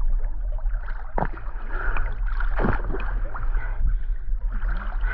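Lake water sloshing and splashing around a person moving in the water, with a couple of sharper splashes about one and two and a half seconds in, over a steady low rumble on the microphone.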